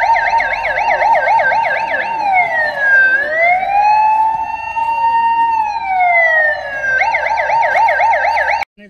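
Electronic siren alternating between a fast yelp of about four pitch cycles a second and a slow wail that falls, rises, holds and falls again, then back to the fast yelp; it cuts off abruptly near the end.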